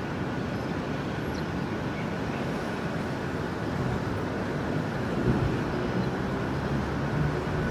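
Steady airport background noise: a low rumble of distant engines and traffic, with a faint high whine held throughout. A deeper engine hum grows stronger in the second half.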